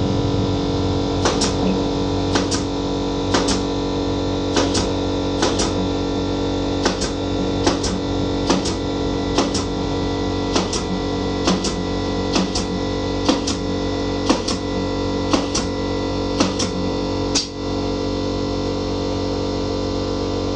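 Background guitar music: chords strummed in quick pairs about once a second over sustained notes.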